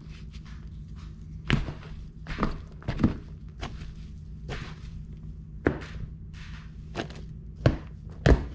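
A slotted plastic utensil stirring wet shredded cardboard and sawdust spawn in a plastic tub: irregular scrapes and knocks against the tub, roughly one a second, over a steady low hum.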